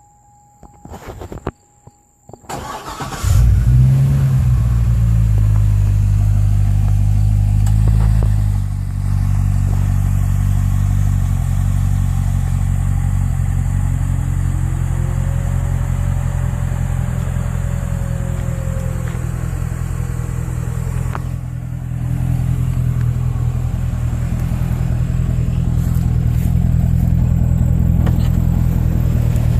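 A 2008 Corvette's V8 starting: it catches with a brief rev about three seconds in, then runs at a fast idle that drops to a steady, lower idle about eight seconds in.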